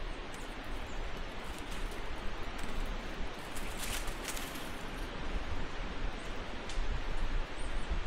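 Steady rushing outdoor noise, with a few brief rustles or clicks, the loudest about four seconds in.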